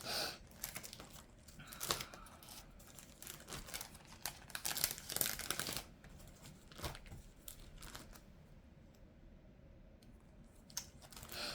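Paper and plastic sticker sheets being rummaged through: irregular rustling and crinkling with scattered small clicks, busiest over the first half, and a soft knock about seven seconds in.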